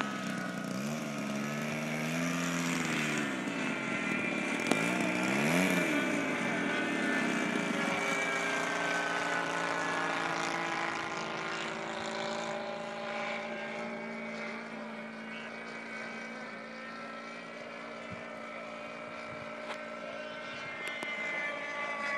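Radio-controlled model airplane's engine running in flight. Its pitch swings up and down over the first several seconds, then holds fairly steady. There is one sharp click about five seconds in.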